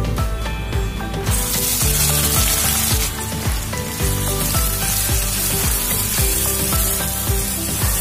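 Chopped onions sizzling in hot oil in a kadai. The sizzle starts suddenly a little over a second in, as the onions go into the oil, and carries on steadily while they are stirred with a wooden spatula.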